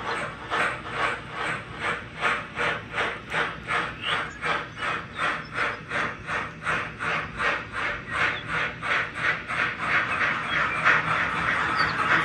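Steam locomotive chuffing in a steady rhythm of about two and a half hissing beats a second, as an HO scale model steam engine pulls a freight train at an even pace. About ten seconds in, the separate beats blur into a steadier hiss.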